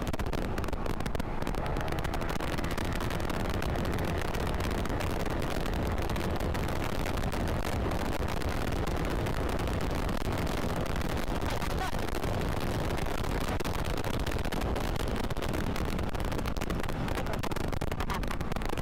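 Steady wind rush buffeting the microphone, over the road and engine noise of a Kymco KRV 180 TCS scooter being ridden at speed.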